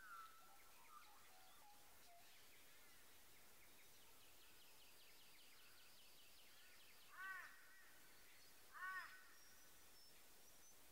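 Faint birds calling over near-quiet surroundings: a fast chattering run of notes, then two short crow-like calls about a second and a half apart.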